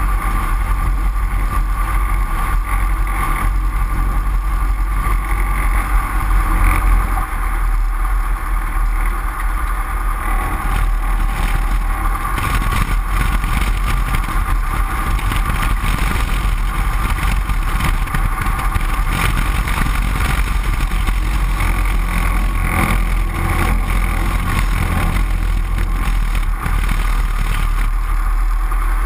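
Great Lakes 2T-1A-2 biplane's four-cylinder Lycoming engine and propeller running steadily at low taxi power, loud and close, with air from the propeller rushing over the tail-mounted microphone.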